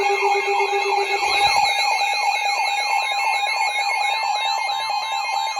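Several weather alert radios sound their alarms at once for a newly issued severe thunderstorm warning. They start suddenly together: steady tones, a fast high warble, and a siren-like sweep repeating about twice a second.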